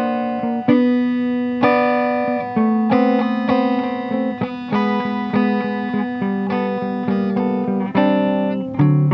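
Acoustic guitar played slowly and softly, single plucked notes and chords ringing on over a moving bass line.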